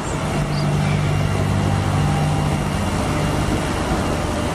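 Concrete mixer truck's diesel engine running steadily at low speed as the truck moves slowly, with a constant low engine hum.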